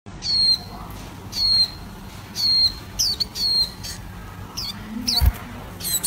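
Warbling white-eye calling: three high-pitched calls about a second apart, then a run of quicker, shorter chirps.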